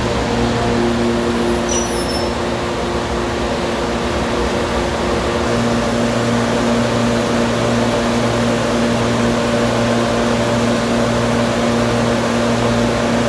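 GBRf Class 92 electric locomotive 92020 standing with its cooling blowers and electrical equipment running: a steady hum of several held tones over an even hiss.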